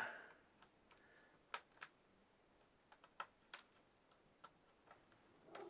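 Faint, irregular small clicks and ticks of a Clevo W540EU laptop's plastic screen bezel being pried with a metal flathead screwdriver, its retaining clips popping loose one by one.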